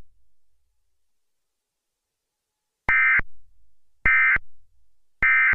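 Emergency Alert System end-of-message data tones: after almost three seconds of silence, three short, identical shrill digital bursts about a second apart.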